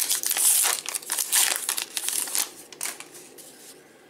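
Wrapper of a trading-card pack being torn open and peeled off the cards: a dense crinkling and crackling that dies away after about three seconds.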